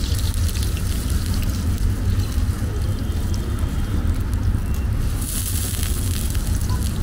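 Restaurant kitchen cooking noise: a steady low rumble with scattered clatter, and a burst of sizzling hiss about five seconds in.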